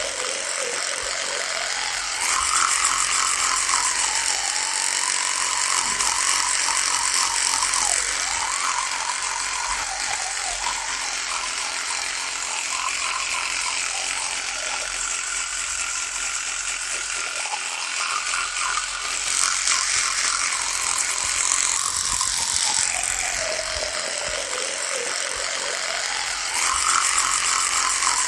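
Electric toothbrush running continuously with a buzz whose pitch wanders up and down, brightening at moments and dropping lower at others.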